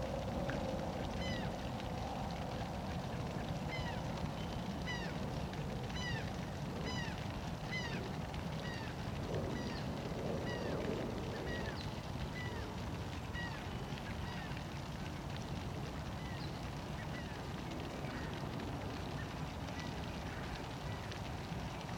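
An animal calling over and over in short, high notes, one or two a second, thinning out after about fifteen seconds, over a steady low background noise.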